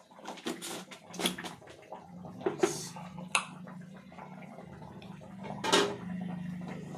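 Kitchen handling noises: a plastic container's lid being worked open and shut, with several sharp clicks and clatters, the loudest about a second in, near the middle and near the end. A steady low hum runs underneath.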